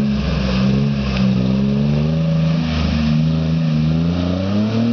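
Lifted Jeep Wrangler's engine working hard under load as it pushes through a deep mud hole. Its pitch holds fairly steady, sags a little mid-way, then climbs near the end as it revs.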